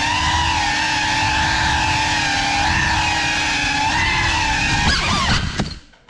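FPV drone's motors and propellers whining, with the pitch wavering up and down as the throttle changes. About five seconds in the whine falls away quickly to near silence.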